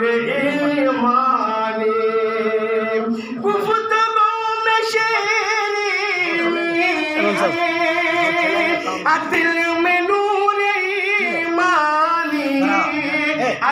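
A man singing an Urdu naat unaccompanied, in long drawn-out notes that waver and slide, pausing briefly for breath now and then.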